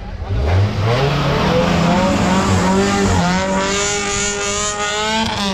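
Modified Maruti Gypsy off-roader accelerating hard from a standing start, its engine revving up with the pitch climbing. The pitch dips about three seconds in, then rises again.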